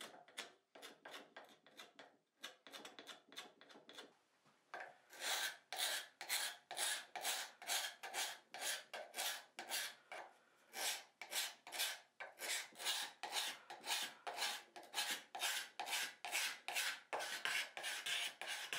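Steel card scraper scraping brittle old shellac finish off a turned wooden cabinet leg. Light, faint strokes at first, then from about five seconds in a steady run of louder scraping strokes, about two or three a second.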